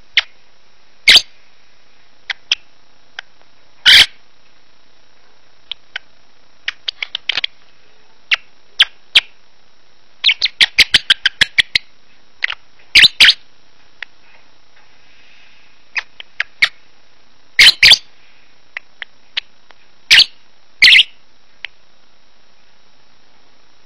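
Pet lovebird chirping to itself as it drifts off to sleep. It gives sharp single chirps a few seconds apart, a couple of short quick runs, and one fast string of about ten chirps around the middle.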